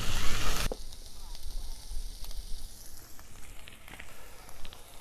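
Pork pieces sizzling as they fry in a pan, with scattered faint crackles. A loud rushing noise fills the first moment, then cuts off sharply.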